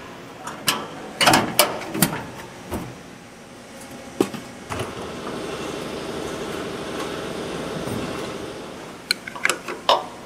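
Metal-on-metal clicks and clanks of parts and tools being handled during assembly of a stainless-steel machine. In the middle a steady whirr runs for about three seconds, then stops. A few more sharp clicks come near the end.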